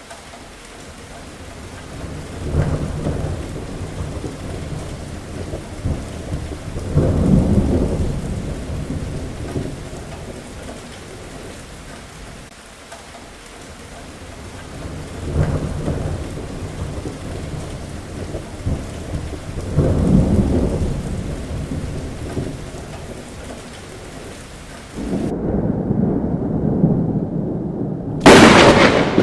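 Heavy rain falling steadily while thunder rolls in several low, swelling rumbles. Near the end the rain hiss drops away suddenly, leaving a low rumble, and then a sharp, close thunderclap cracks, the loudest sound.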